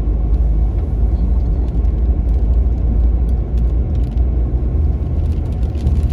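Car driving on a snow-covered road: a steady low rumble of engine and tyres.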